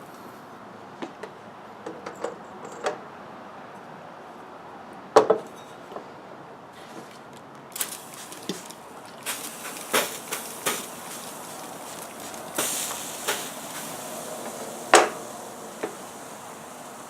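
Hot copper pipe and fitting clinking and knocking as they are handled, with a few short hissing sprays of water to cool the freshly unsoldered copper.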